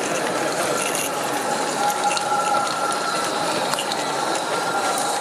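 Live-steam model locomotive running on its track: a rapid, ratchet-like mechanical clatter from its motion and wheels, with a hiss of steam.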